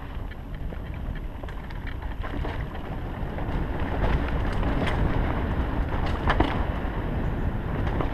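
Mountain bike rolling fast down a dirt singletrack: tyre rumble over dirt and leaf litter under wind buffeting the microphone, with several sharp rattles and knocks from the bike over bumps in the second half, the loudest near the end on rocky ground.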